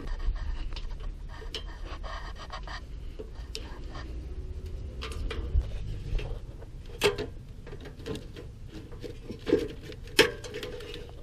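Scattered plastic clicks and rubbing as a wiring harness and its clips are pried loose by hand, over a low rumble in the first half.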